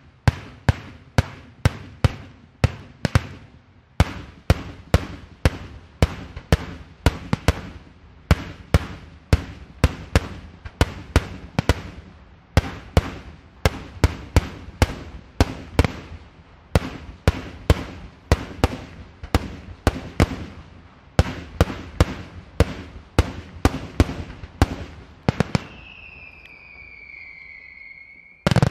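Daytime fireworks: aerial shells bursting in a rapid string of sharp, loud bangs, about two to three a second. Near the end the bangs break off for a whistle that sags slightly in pitch, followed by one very loud bang.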